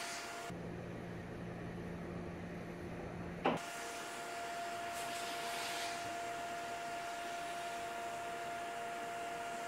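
Steady mechanical hum and hiss with a thin, constant high tone. For about three seconds near the start it gives way to a lower, duller hum, which ends in a short, sharp sweep.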